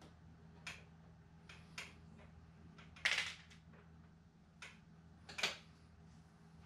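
Light clicks, taps and scrapes of small parts being handled and fitted on a model airplane, about seven in all, with a louder, longer scrape-and-knock about three seconds in and another sharp knock about five and a half seconds in, over a faint steady low hum.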